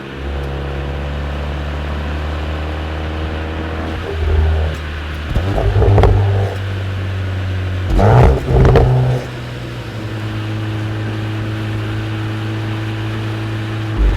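2025 Volkswagen Golf R's turbocharged 2.0-litre four-cylinder engine idling steadily, with four short throttle blips: one about four seconds in, a slightly longer one just after, and two quick ones close together past the middle, each dropping back to idle.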